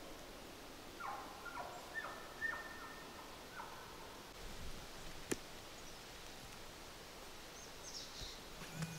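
A run of about six short chirping animal calls, some falling in pitch and some held level, over faint forest ambience. A single sharp snap comes about five seconds in, and a few faint higher chirps follow near the end.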